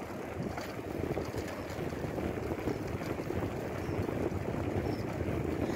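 Steady rush of wind on the microphone while riding a bicycle, with the tyres rolling on tarmac.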